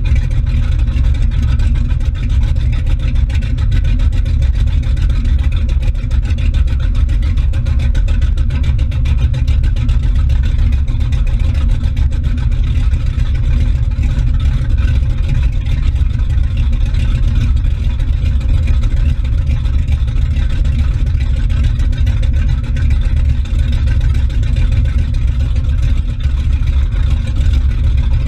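Motorboat engine running steadily under way, a deep even rumble, with the churning of its wake and prop wash close by.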